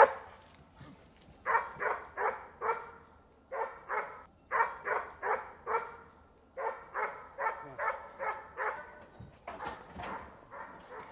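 Boar-hunting dogs barking at a distance in quick runs of several barks, about three a second, with short pauses between runs: the pack giving tongue as it works a wild boar's trail.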